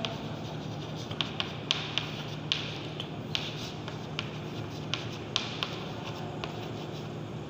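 Chalk writing on a chalkboard: irregular sharp taps and short scratches as the letters are formed.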